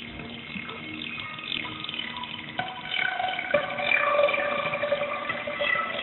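Transformation sound effect: many overlapping tones sliding up and down in pitch, growing louder about two and a half seconds in.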